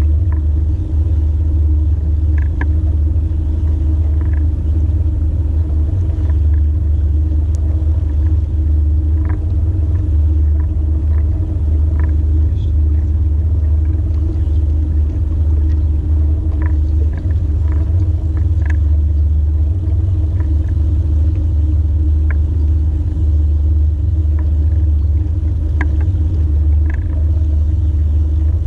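Fishing boat trolling under power: a steady, loud low rumble from its motor, with a constant hum and occasional faint ticks.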